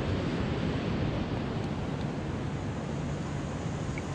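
Steady outdoor noise of wind on the microphone and water at the shore, with no distinct events.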